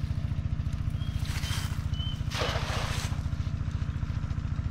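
A small engine running steadily with a fast, even throb. About two and a half seconds in, a cast net being thrown makes a short rushing swish and splash on the water.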